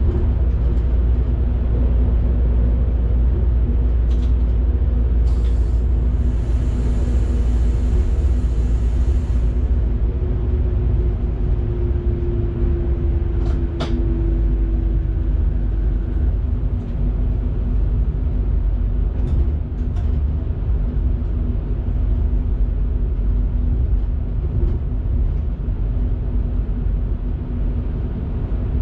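Electric train running on the line, heard from the driver's cab: a steady low rumble of wheels on rail with a constant motor hum. A hiss of a few seconds comes about five seconds in, and there are a few short clicks.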